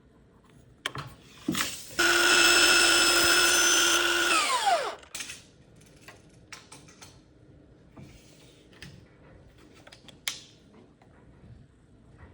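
Electric miter saw run for a cut through wood casing trim: a steady high motor whine for about two and a half seconds, then falling in pitch as the blade spins down. A few clicks and knocks come before and after it.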